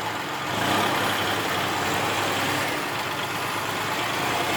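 Tractor engine running steadily, its note rising a little about half a second in and then holding.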